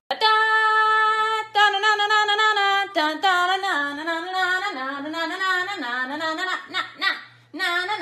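A voice singing a wordless tune: two long held notes, then a wavering, swooping melody that breaks off briefly near the end and resumes.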